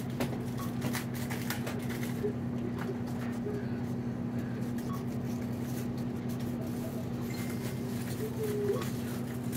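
Steady low hum of a shop's background, with faint voices and a few small handling knocks.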